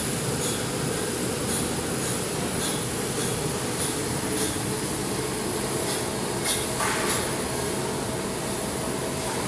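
Industrial pellet burner running, with its belt-driven electric motor: a steady mechanical drone and rushing noise, with light high ticks at irregular intervals of about half a second.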